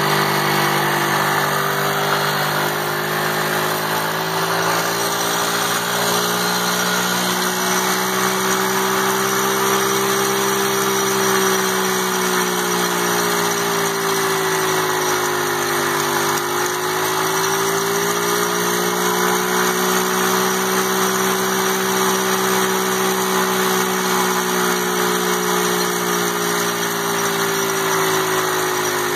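A 50cc ATV engine is held at full revs on the rev limiter while its rear tire spins in place in water and chain lube for a smoky burnout. The engine note runs steadily, dips in pitch about halfway through and rises again.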